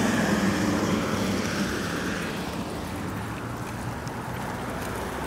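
Steady rushing wind noise on the microphone of a handlebar-mounted camera on a moving bicycle, easing off a little over the first few seconds.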